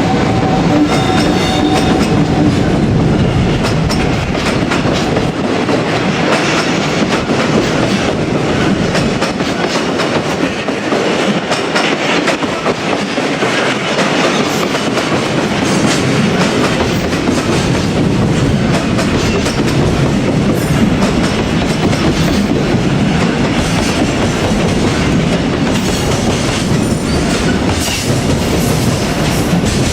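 Freight train hauled by an EF510 electric locomotive rolling past, its wagons' wheels clattering steadily over the rail joints.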